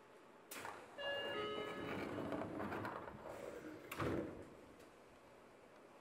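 Seibu 9000-series train doors closing: a short chime of a few ringing tones over a sliding rush, then a thud about four seconds in as the doors meet.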